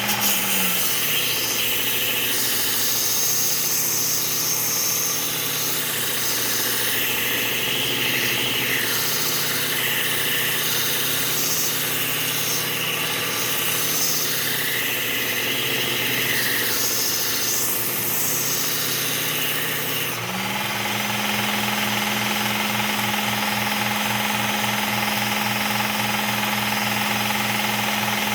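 Motorised belt sharpener with a 120-grit Cubitron belt grinding a pruning blade. The motor hum drops in pitch about a second in as the blade is pressed to the belt, with a rasping grind that comes and goes with each pass, then rises back to free-running speed about two-thirds of the way through.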